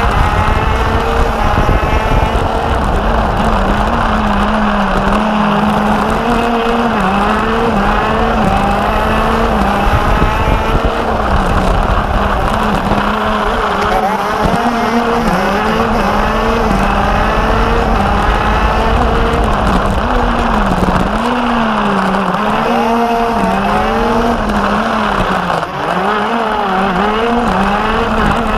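Racing kart engines at high revs, heard onboard: the kart's own engine dropping in pitch into each corner and climbing again on the straights, with a second kart running close ahead.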